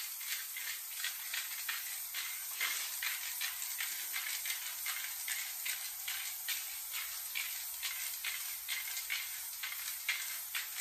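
Aerosol spray paint can hissing in short, quick puffs, about three a second.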